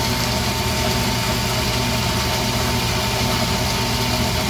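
Tormach AF50 bandsaw running steadily, its blade cutting through a 3-inch square block of solid aluminum. A constant high tone sits over the motor hum.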